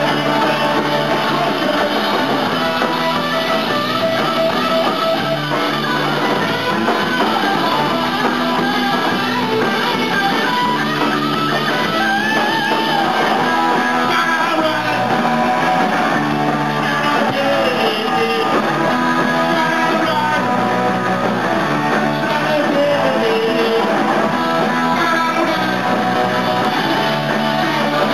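Live rock band playing loud and steady: electric guitar over a drum kit.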